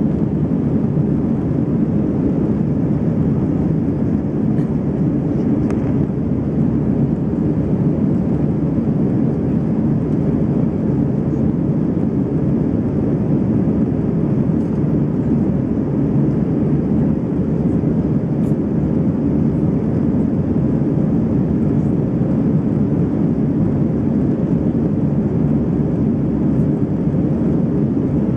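Steady engine and airflow noise heard inside the cabin of an Airbus A319 climbing after takeoff, heaviest in the low range and unchanging.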